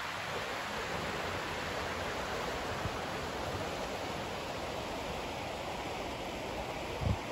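River water rushing over shallow rapids, a steady hiss of running water. A brief low thump comes near the end.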